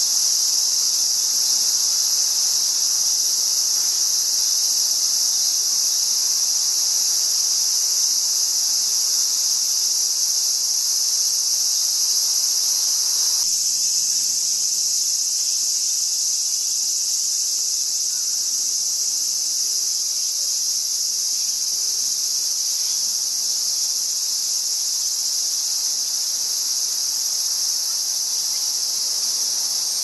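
Dense chorus of cicadas, a continuous high-pitched hiss that holds steady without pause. About halfway through, a fainter lower background noise drops away suddenly while the insect hiss carries on.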